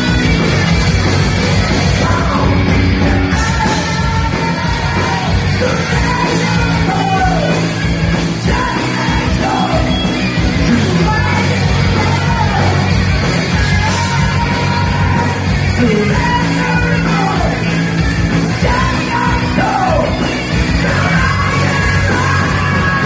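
Rock band playing a song, with a lead vocalist singing and yelling over guitars and drums.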